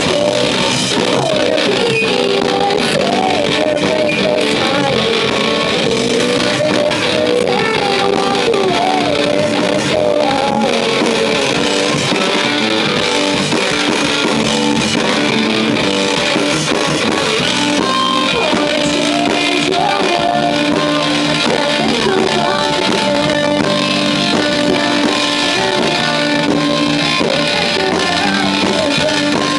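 Rock band playing live: electric guitar and drums, with a woman singing.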